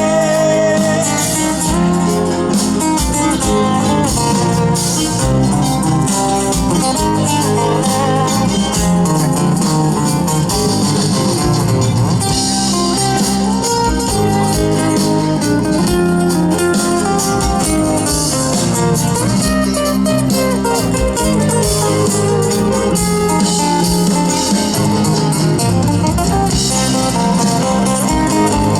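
Instrumental break of an acoustic rock song: guitars play a melody over a steady strummed and plucked accompaniment, with no singing.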